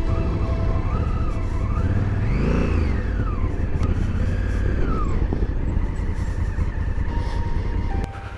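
Honda Africa Twin CRF1000L's parallel-twin engine running under way over rough ground, revving up and falling back about two and a half seconds in and again around five seconds, over a steady rumble of wind and tyres. The level drops suddenly near the end.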